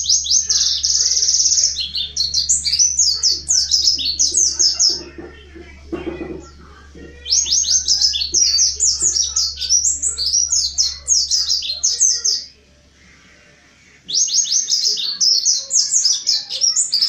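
Mountain white-eye (pleci montanus) singing a rapid, high twittering song in three long bouts, with short pauses between them.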